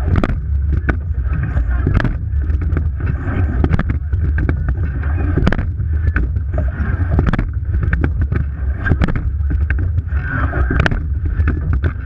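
Rowing eight under way at racing pace, heard from a camera on the bow: a steady heavy rumble of wind and water rush on the microphone, cut by repeated sharp knocks of the oars working in their gates through the stroke.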